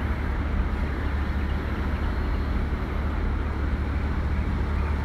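Steady low hum of a car engine idling, even and unchanging throughout.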